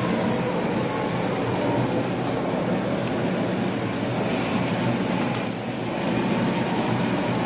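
Robopac Rotoplat 708 turntable stretch wrapper running: a steady machine hum and whir as the turntable spins the pallet and stretch film pays out from the carriage. It goes briefly quieter about five and a half seconds in.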